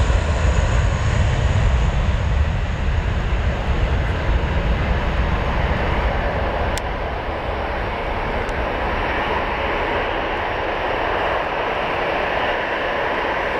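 Boeing 757 jet engines at takeoff thrust during the takeoff roll: a loud, steady roar with a deep rumble, heaviest in the first few seconds and easing slightly as the aircraft rolls away.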